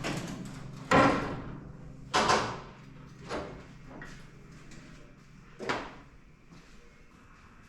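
Four hard knocks and clunks a second or more apart, the first two loudest, each with a short ring: objects being handled and set down in a workshop.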